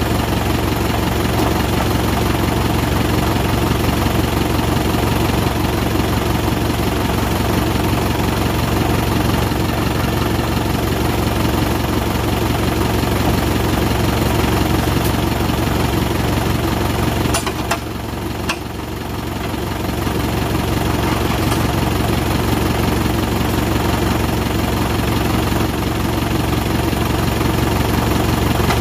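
Lorry engine idling steadily. About two thirds of the way through it briefly dips, with a couple of sharp clicks.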